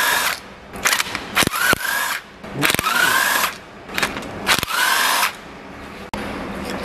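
Pneumatic wrench running out the bolts of an engine's rear main seal housing. It runs in several short bursts of air hiss, each under a second, and each has a whine that rises as the motor spins up.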